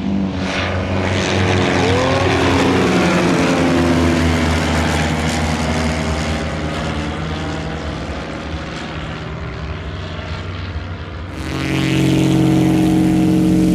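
Piston engines and propellers of light high-wing planes flying a low formation pass, with the engine note dropping in pitch as they go by. About eleven seconds in, the sound cuts to a single plane of the same kind close by on the dirt strip, its engine running steady and loud at high power.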